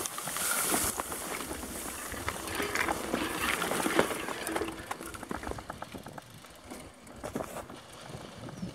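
Mountain bike rolling along a dirt trail through tall grass: grass and brush swishing against the bike, with scattered clicks and rattles from the bike over bumps. It is busiest in the first few seconds and quieter after about five seconds, once the trail opens up.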